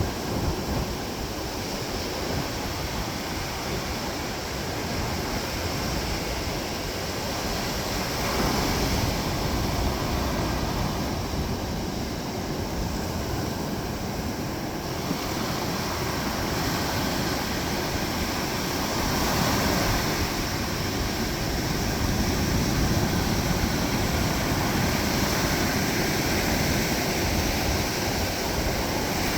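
Atlantic ocean surf breaking on a sandy beach: a continuous rushing wash of waves, swelling louder every several seconds as a wave crashes.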